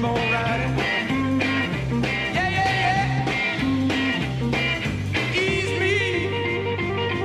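A 1960s rock band playing live, with a repeating bass riff under a steady drum beat and bending lead lines.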